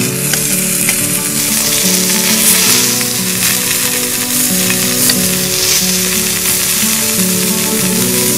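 Meat sizzling on a hot grill plate over a Solo Stove wood-burning camp stove: a steady frying hiss with small pops. A slow background melody plays under it.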